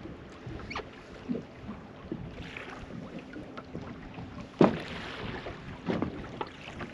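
Knocks and handling noises aboard a small fishing boat over a steady wash of water and wind on the microphone, with one sharp loud thump about two-thirds of the way through and a smaller one soon after.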